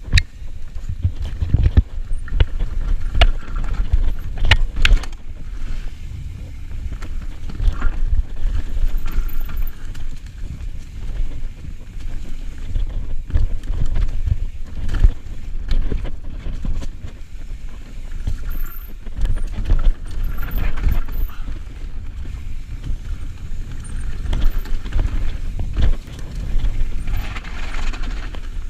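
Mountain bike descending a rocky, rooty trail: a steady low rumble of wind on the microphone, with frequent sharp knocks and clatter as the tyres and frame hit rocks and roots.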